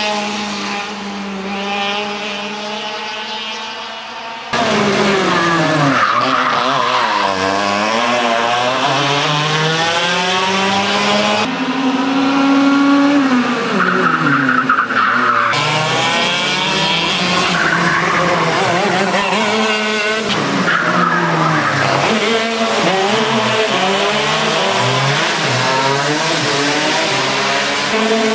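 Racing go-kart engines running hard, their pitch rising and falling repeatedly as the karts accelerate and back off. The sound jumps abruptly several times, with a sudden loud jump about four and a half seconds in.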